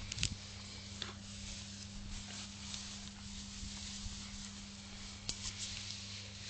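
Faint rustling and a few soft clicks of dogs moving through long grass, over a steady low hum and hiss.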